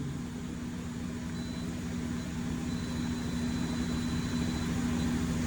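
Steady hum of running machine-shop machinery with a constant low tone and a faint high whine, growing slightly louder.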